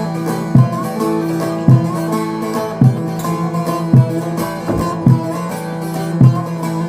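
Instrumental introduction of a Kurdish song: a plucked string melody over sustained held tones, with a low drum beat about once a second.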